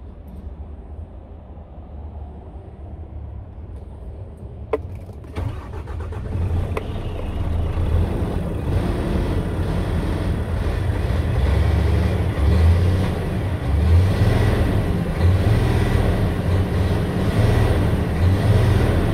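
Scania P-series diesel truck engine heard from inside the cab: a low rumble, a sharp click about five seconds in, then the engine grows louder and is revved in neutral in several surges, the revs climbing to about 2000 rpm.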